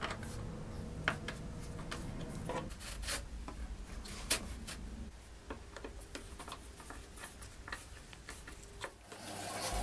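Irregular light clicks and taps, with a faint steady hum underneath, as the bandsaw's circle-cutting jig is adjusted by hand.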